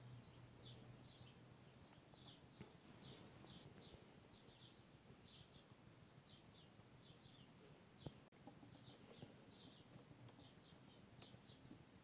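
Near silence with faint small-bird chirps repeating irregularly in the background, and a couple of soft clicks.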